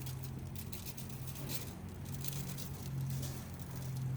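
Seasoning salt shaken from a shaker onto raw chicken thighs: an irregular patter and rustle of granules in short bursts, over a steady low hum.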